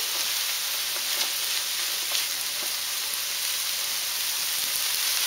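Steady frying sizzle from a skillet of tomato sauce on the stove, with a few faint ticks of a spoon stirring meat stuffing in a foil pan.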